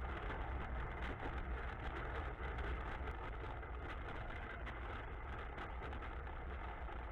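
Tractor engine running steadily, a constant low rumble with no change in pace.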